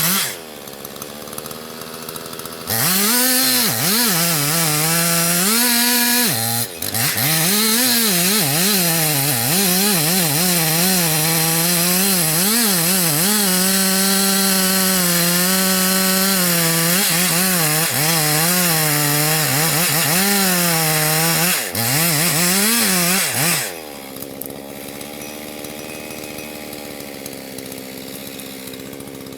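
Chainsaw at full throttle cutting wood, its engine pitch dipping and recovering as the chain bites. It runs quieter for the first couple of seconds and again for the last five or so.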